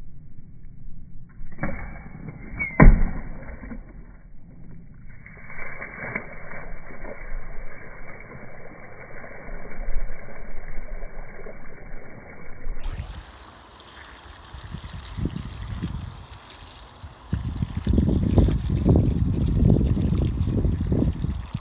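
A single sharp crack about three seconds in as a coil-gun nail punches into a water-filled plastic bin, then water gushing from the hole and splashing onto the grass.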